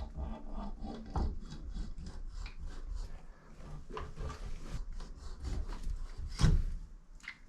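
A Moen shower valve cartridge being worked loose and pulled from the valve body: irregular scraping and rubbing with small clicks, and one louder knock about six and a half seconds in.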